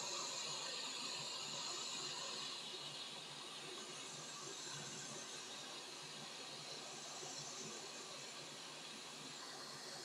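Hot air rework station blowing a faint, steady hiss of hot air onto a circuit board, easing slightly after about three seconds. It is heating the solder joints of an HDMI port to desolder it.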